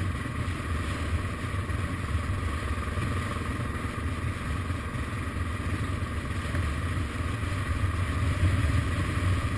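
Suzuki DR650's single-cylinder engine running steadily as the motorcycle rides slowly past a line of stopped cars.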